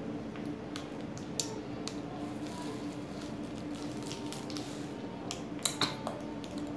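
Wet sucking and mouth clicks on a freeze pop in its plastic sleeve: scattered small smacks, a couple of louder ones about two-thirds of the way through, over a steady background hum.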